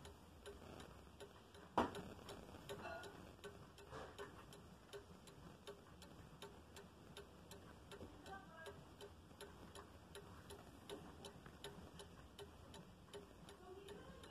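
Spring-driven brass pendulum clock movement ticking at a fast, steady beat, running on a new pendulum suspension spring. A single louder knock comes about two seconds in.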